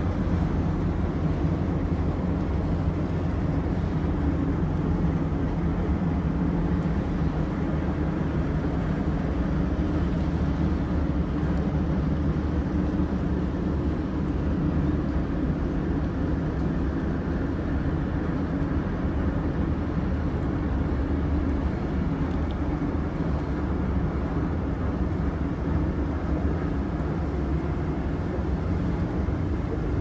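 Steady low drone of the car ferry Nanashima's diesel engines as she motors slowly into harbour: a hum made of several steady low tones over a rumble.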